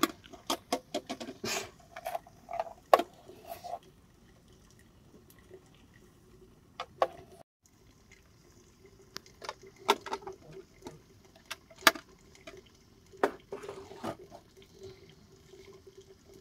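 Water splashing, with scattered sharp clinks and knocks.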